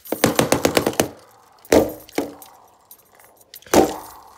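A plastic toy knocked and rattled against a window frame and glass in a quick run of sharp taps, then a few separate harder strikes: swatting at a fly.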